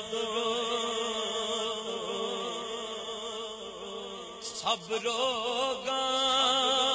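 Wordless naat singing: a steady held drone for the first few seconds, then from about five seconds in a male reciter's voice comes in with wavering, ornamented long notes that grow louder.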